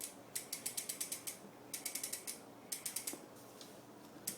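Loud rear hub of a 2012 Verde Eon BMX bike ticking as the back wheel freewheels: three short runs of rapid ratchet clicks, with another run starting near the end.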